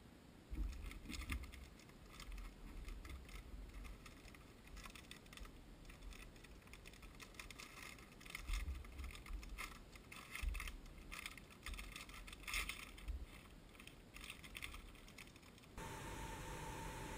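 Faint handling noise of items in thin plastic bags on a tabletop: irregular crinkling and clicking with a few soft knocks. Near the end it gives way abruptly to a steady electrical hum.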